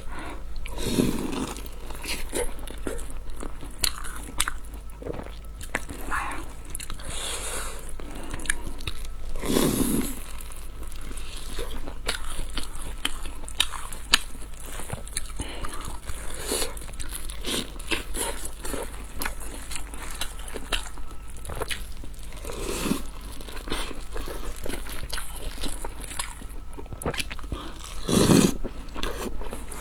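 Close-miked eating sounds: many bites and crunches with chewing, and now and then a louder, longer mouth sound.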